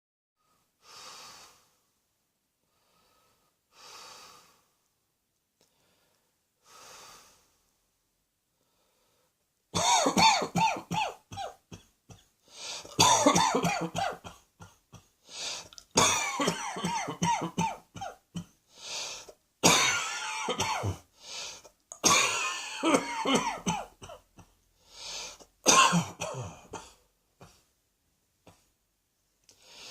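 A person coughing in repeated fits, each a quick run of rough, loud coughs lasting a second or two, with short quieter pauses between fits. The first ten seconds hold only three faint breaths before the coughing starts.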